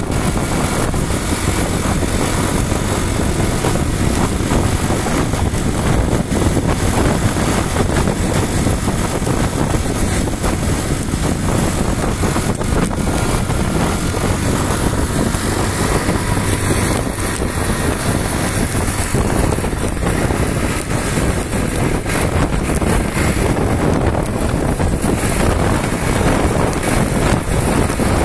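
Steady rush of wind and road noise from a moving motorcycle, with no change through the ride.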